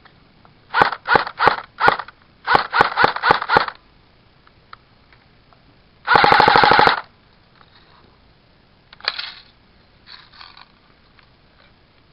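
Electric airsoft rifle firing: nine single semi-automatic shots in two quick runs, then a short full-auto burst of rapid shots about six seconds in, followed by a few fainter clicks.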